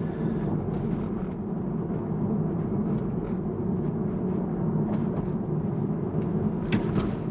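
Steady low road and tyre rumble inside the cabin of a moving Tesla Model 3. It is an electric car, so there is no engine note.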